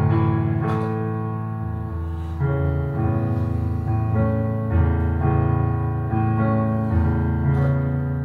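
Electronic keyboard played with a piano voice: sustained chords with both hands, changing about every two seconds, as an instrumental passage.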